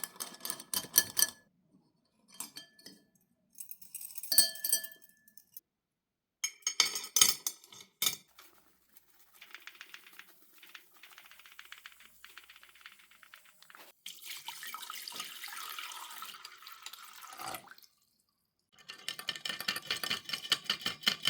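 Light clicks and clinks of small metal parts being handled, in several separate bursts, some with a brief ring. About two-thirds of the way through there is a few seconds of steady hissing or rubbing noise, and dense clicking comes back near the end.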